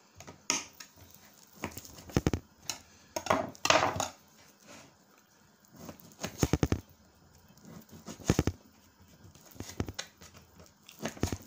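Kitchen knife cutting raw pork into cubes on a plastic cutting board: short bursts of quick knocks as the blade goes through the meat and strikes the board, every second or two.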